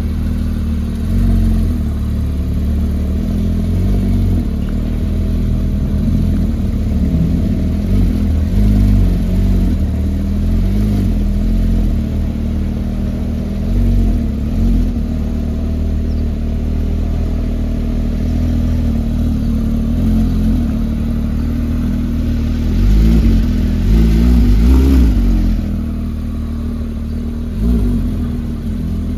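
Car engine idling steadily, its note swelling and wavering briefly about three quarters of the way through.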